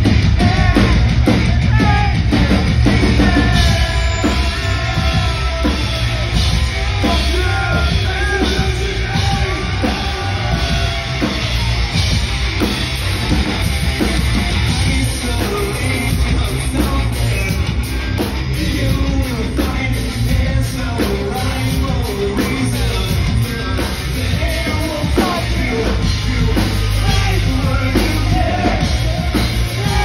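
Hard-rock band playing live and loud, with electric guitar, a drum kit and a singer singing and yelling over it.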